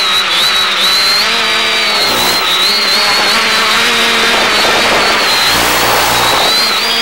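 X550AIOP quadcopter's electric motors and propellers whining, heard over the FPV video downlink under heavy hiss. The whine's pitch wavers up and down continually as the motors adjust.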